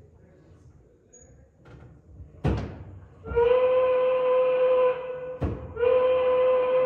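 Recorded steamboat whistle played by a pilot's-wheel exhibit: two long, steady blasts on one tone, the first about two seconds and the second shorter. A sharp knock comes before the first blast and another falls between the two.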